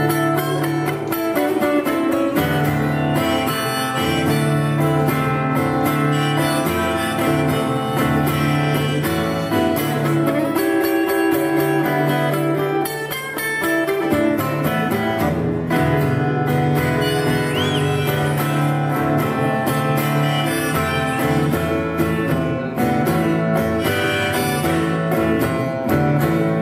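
Acoustic guitar strummed steadily, with a harmonica playing held notes over it in an instrumental break.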